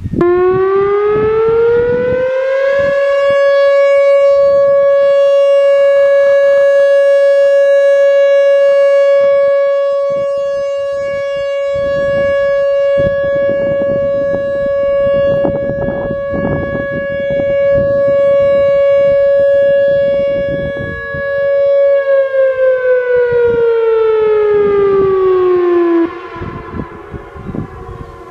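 Whelen WPS-3000 electronic warning siren sounding a short steady alert. The tone sweeps up over a couple of seconds to a held 560 Hz note, swelling and fading in loudness as the rotating speaker head sweeps around. About 22 seconds in it glides down in pitch, then cuts off.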